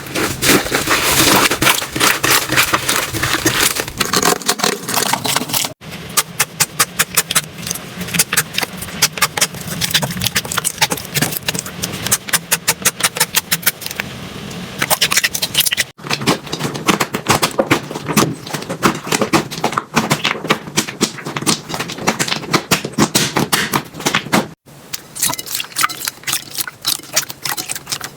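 Slime being squeezed and poked, a dense run of rapid clicks, crackles and pops. The sound breaks off briefly three times as it cuts from one slime to the next.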